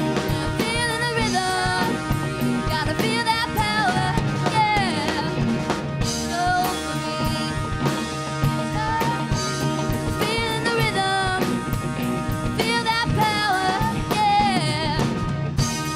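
Live rock band playing: female vocals with wavering held notes over a drum kit and the rest of the band.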